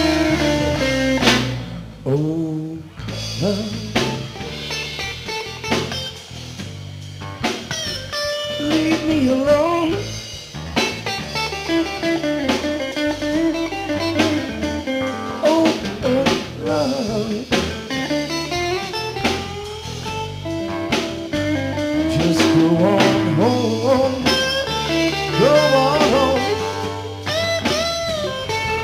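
Live blues-rock band playing an instrumental stretch: an electric guitar lead with bending notes over bass guitar and drum kit.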